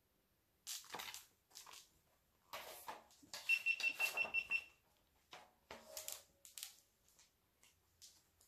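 Paper pages of a hardcover picture book being leafed through, in a series of short rustling swishes. About halfway in, a rapid high beeping comes in: about eight quick beeps in just over a second.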